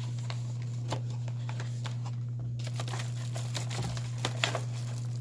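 Packaging crinkling and rustling in irregular crackles and clicks as an item is handled and unwrapped, over a steady low electrical hum.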